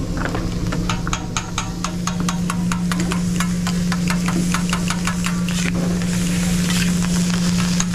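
Metal spatulas clicking rapidly on a hot griddle, about five or six strikes a second, over a steady low hum. Food sizzles on the griddle, louder toward the end.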